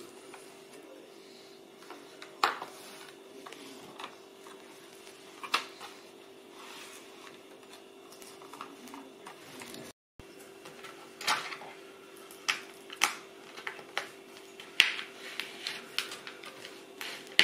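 Plastic clips of a ThinkPad L440's screen bezel clicking and snapping as fingers pry it up around the edge of the display lid. There are sharp clicks a few seconds apart at first, then a quicker run of them in the second half.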